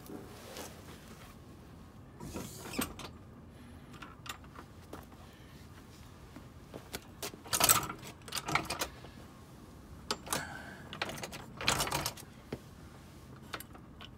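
Scattered metal clicks, clanks and scrapes of a floor jack and hand tools being handled, with several louder clatters.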